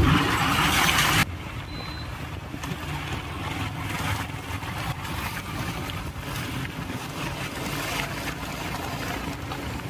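Bore well drilling rig's engine running steadily. A loud rushing hiss over it in the first second stops abruptly.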